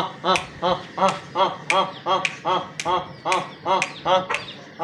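A person calling chickens with a rapid, even string of short clicking calls, about three a second, each starting with a sharp click and rising then falling in pitch.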